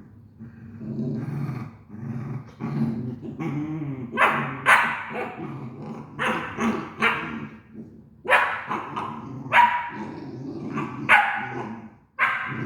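Great Dane growling, then barking in a string of loud barks about once a second.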